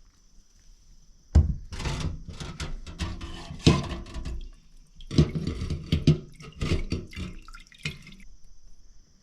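Liquid splashing and dripping with irregular knocks as Weber carburetor parts are handled in cleaning liquid. It starts about a second in and stops near the end.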